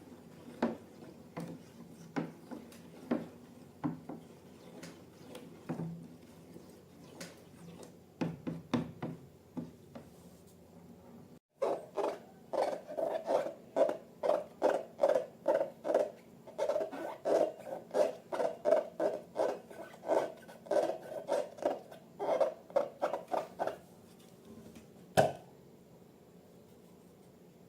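Slime-making handling noises: scattered short clicks and taps, then after a brief break a quick run of wet squishing or clicking sounds, two to three a second, for about twelve seconds, and one sharp knock near the end.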